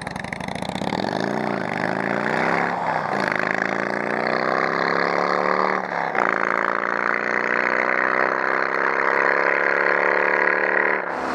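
Suzuki DR650SE's single-cylinder four-stroke engine pulling away and accelerating through the gears. It revs up and drops back about a second in, then makes gear changes near three and six seconds, with the engine pitch climbing steadily after each shift.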